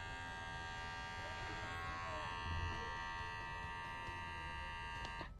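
Xiaomi Enchen cordless hair clipper running with no hair, its blade motor giving a steady buzz with many overtones, then switched off just before the end.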